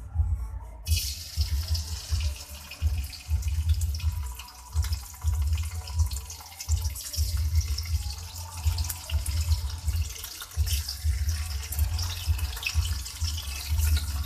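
Food sizzling in hot frying oil: a dense hiss starts suddenly about a second in as the food goes into the pan and keeps on. Repeated low bumps of handling run underneath.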